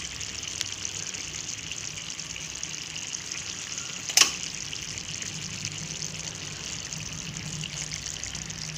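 Fish braised in coconut-milk adobo sauce simmering in a pan, a steady bubbling sizzle. There is one sharp click about four seconds in.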